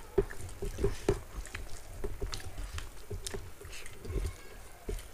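Two people eating rice and vegetable curries with their fingers from steel plates: wet chewing and mouth smacks, and fingers mixing food on the plates, in many short irregular clicks.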